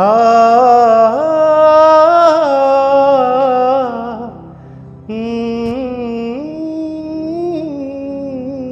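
A man's voice singing a wordless melody on long held vowels, in two drawn-out phrases with slow pitch bends; the first fades about four seconds in and the second begins about a second later.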